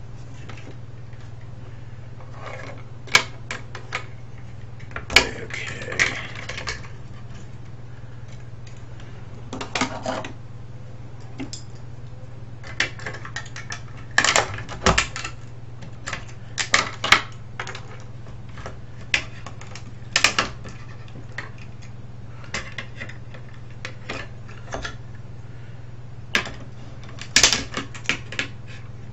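Irregular clicks, taps and clatters of small plastic and metal parts being handled and pulled apart while a Sony cassette recorder radio is dismantled, some in quick clusters. A steady low hum runs underneath.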